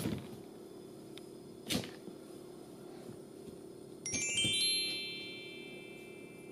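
Two brief soft rustles as a cat paws and pushes into a fleece rug, then about four seconds in an added chime sound effect: a cluster of high bell-like tones struck together that rings and fades out over about two seconds.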